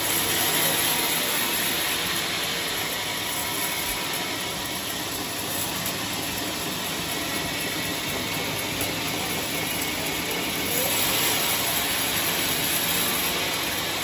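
Homemade circular-saw sawmill running, its blade cutting steadily through a trembesi (rain tree) log: a steady rush of noise over a faint low hum, a little louder about eleven seconds in.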